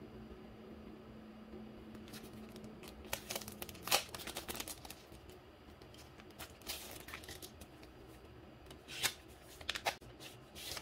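Clear plastic sticker packaging and paper sheets crinkling and rustling as they are handled and opened, in two bouts of scattered crackles, the sharpest about four seconds in.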